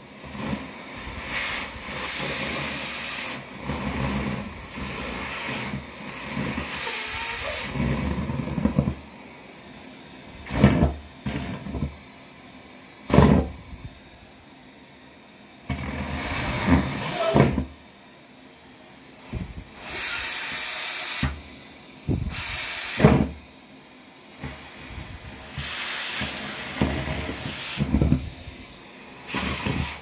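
Canister vacuum cleaner running with its open metal wand, sucking deflated rubber balloons off a carpet. The air rush surges in about ten loud, irregular hissing bursts as the tube meets the carpet and balloons are drawn in, a few with a short whistle.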